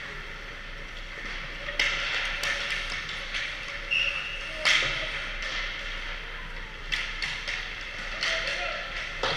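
Ice hockey practice on a rink: a steady scraping hiss of skates on ice, broken by a handful of sharp cracks of sticks hitting pucks and pucks striking the boards, the loudest about halfway through. A brief high tone sounds just before that loudest crack.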